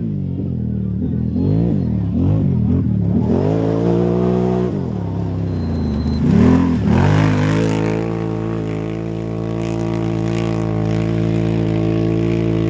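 Can-Am Renegade 1000 quad's V-twin engine revving up and down hard as it races over dirt, then running at a steady, high pitch for the last few seconds.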